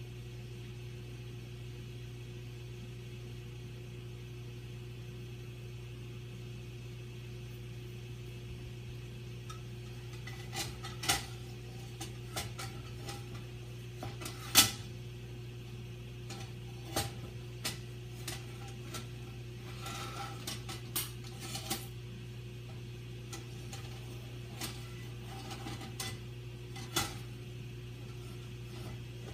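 A metal frying pan knocking and clanking against an electric coil burner as it is lifted, tilted and set back down, in scattered knocks from about ten seconds in, the loudest about halfway through. A steady low hum lies underneath.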